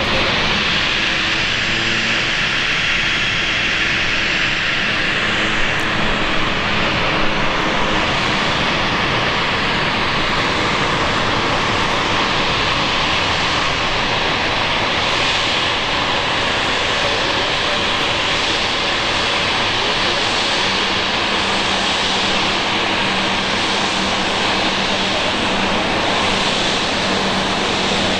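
Austrian Airlines Embraer 195's General Electric CF34-10E turbofan engines running, a steady jet rush with a faint low hum that grows clearer about twenty seconds in.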